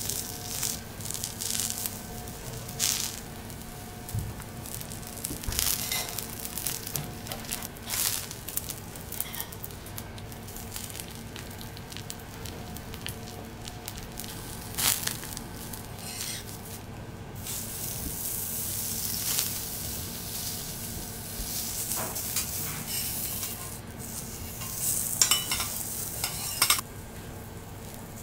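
Potato slice and cuttlefish sizzling on a hot steel teppanyaki griddle, a steady frying hiss. Scattered small metallic clicks come through, with a short cluster of them near the end.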